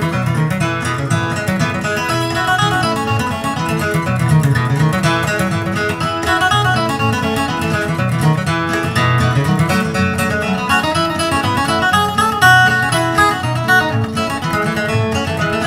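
Instrumental background music led by acoustic guitar, played steadily.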